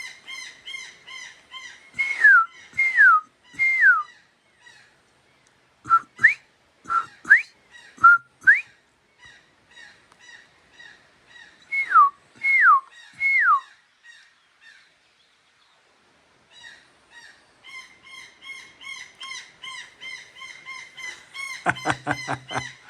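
Birds calling in the morning: fast runs of repeated chirps, with loud slurred whistles that slide down in groups of three, then slide up, then slide down again. Near the end a lower, louder call breaks in.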